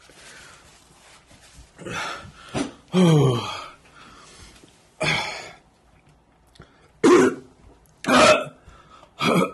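A man groaning, gasping and coughing in a string of short bursts, the loudest a falling groan about three seconds in: a pained reaction to the burn of an extremely hot pepper chip in his mouth, throat and eyes.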